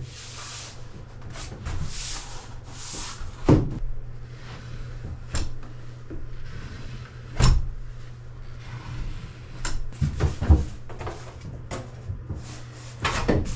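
Thin mahogany panels being handled and slid against a wooden bulkhead for a test fit: rubbing and scraping of wood on wood, broken by several sharp knocks as a panel is set against the planks, the loudest about three and a half and seven and a half seconds in.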